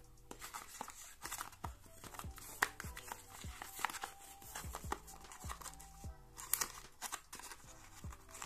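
Rustling, scraping and light clicks from hands handling a cardboard watch box and its insert, over background music with a steady beat.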